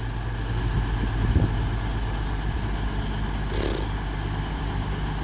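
Class 222 Meridian diesel multiple unit's underfloor diesel engines running with a steady low drone.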